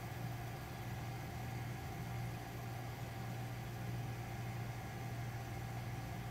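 Steady low machine hum with a faint even hiss, unchanging throughout.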